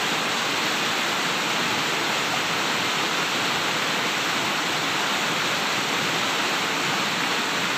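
Steady rushing of a river flowing over rocks.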